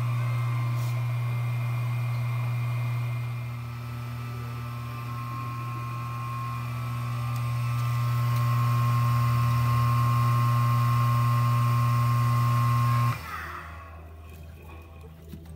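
Small electric transfer pump running with a steady hum as it pumps biodiesel into the finishing tank, then cutting off abruptly about thirteen seconds in.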